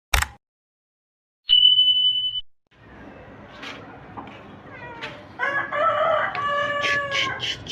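A mouse click and a loud steady electronic beep lasting under a second from a subscribe-button animation, then a rooster crowing about five seconds in.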